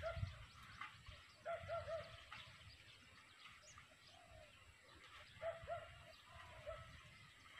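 Faint bird calls: short arched low notes in small groups of two or three, repeated a few times, with scattered thin high chirps.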